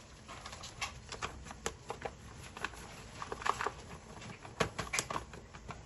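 Irregular light taps and clicks of kitchen work, a few a second, with a couple of sharper knocks past the middle.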